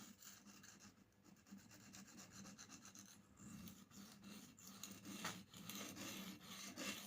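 Steel blade of a pocket knife stroked repeatedly across an oiled sharpening stone: a faint, steady run of rasping strokes.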